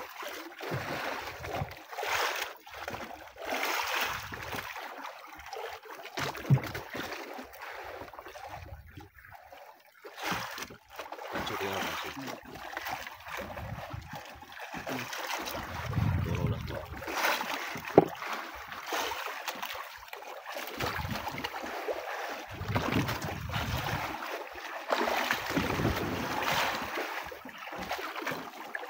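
Seawater lapping and sloshing against the side of a small fishing boat, in uneven surges. Two sharp knocks stand out, one about six seconds in and a louder one near eighteen seconds.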